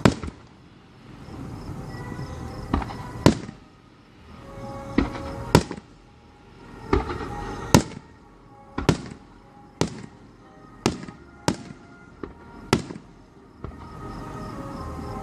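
Fireworks bursting in a rapid series of sharp bangs, a second or two apart and coming quicker in the second half, each followed by a short rumble.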